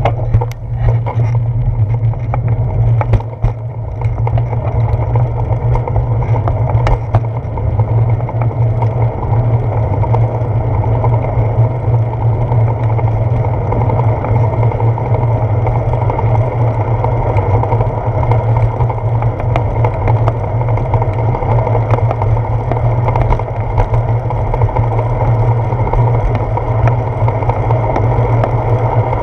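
Steady rumble of wind and road noise picked up by a handlebar-mounted GoPro on a bicycle riding along pavement, with a few brief knocks from bumps in the first several seconds.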